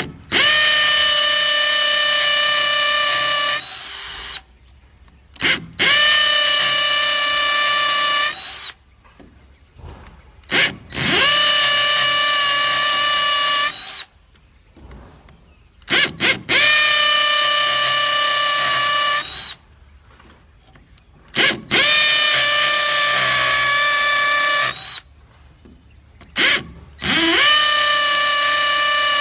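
Dong Cheng hammer drill boring into red brick in six runs of about three seconds each, its motor whine rising as it spins up at the start of each run and stopping sharply. Short blips of sound come in the gaps between runs.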